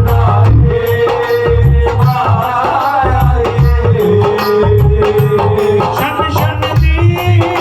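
Punjabi devotional jagran song: a wavering sung vocal over a steady hand-drum beat, jangling rattle percussion and a held instrumental tone.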